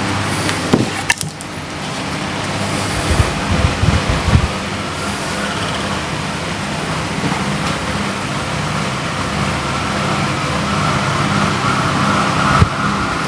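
Steady low rumble of road traffic, with a high siren tone growing louder near the end.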